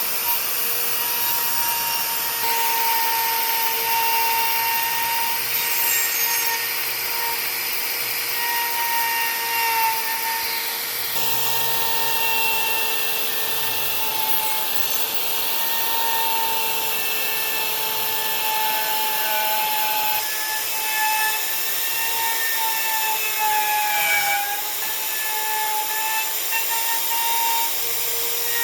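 Electric power tool running steadily on wood, a constant motor whine over a rough hiss, its pitch sagging slightly now and then under load, with a few abrupt jumps in the sound.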